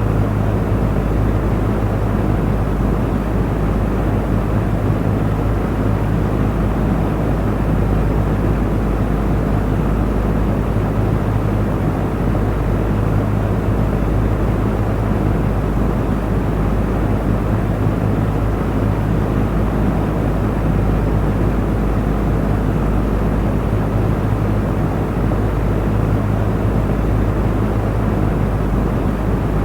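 Electric fan running steadily: an even rush of moving air over a constant low motor hum, with no change in speed.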